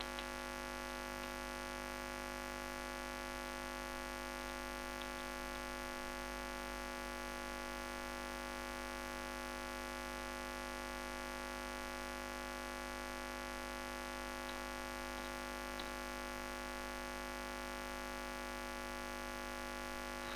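Steady electrical mains hum with many overtones, running evenly throughout, with a few faint isolated clicks.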